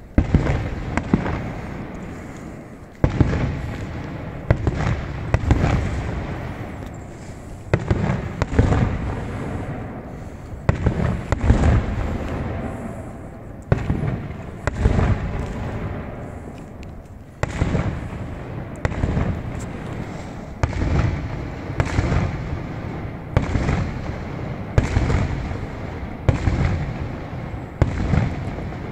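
Fireworks display: a long string of bangs from bursting aerial shells, about one every one to two seconds, each trailing off in a rumble before the next.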